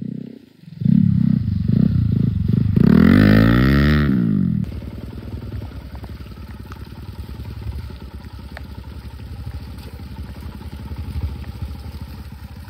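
A motorcycle engine revving hard as the bike rides past, its pitch sweeping up and then down as it goes by. About five seconds in this gives way to a quieter, steady motorcycle engine running along a rough dirt trail.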